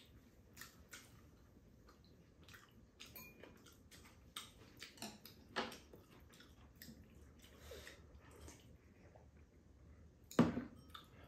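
Faint eating noises of spaghetti eaten with chopsticks from bowls: chewing and small wet mouth sounds, scattered clicks of chopsticks against bowls. A single louder knock comes near the end.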